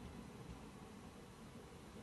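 Faint, steady low rumble of trains running side by side, close to silence.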